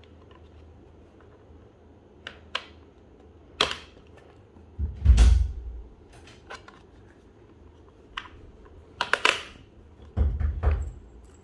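Hard plastic parts of a child bike seat being handled and fitted together: scattered clicks and knocks, with a louder thump about five seconds in and another knock near the end.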